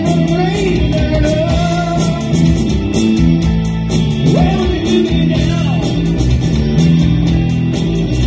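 Live rock band playing: electric guitar, bass guitar, drums and keyboard over a steady beat, with a lead melody line that slides up and down in pitch.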